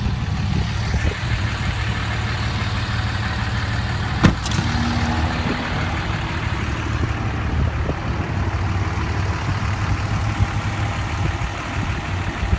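Dodge Ram's 5.9-litre Cummins inline-six turbo diesel idling steadily with a low rumble. A single sharp knock sounds about four seconds in.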